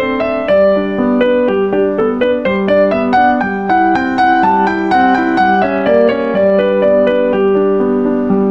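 Background music: a light piano tune played in quick, even notes.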